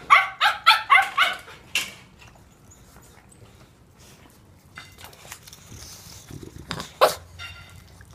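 Small dog barking in rapid high yaps, about six in the first two seconds, then a single bark about seven seconds in.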